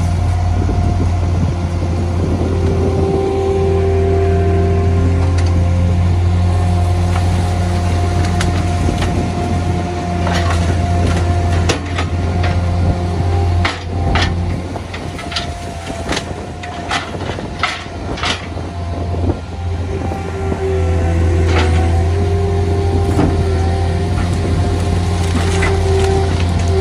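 Garbage truck's diesel engine and hydraulics running at a steady drone while tree branches and wood crack and snap as they are crushed in the rear-loader hopper. The sharp cracking comes in a cluster about ten to eighteen seconds in.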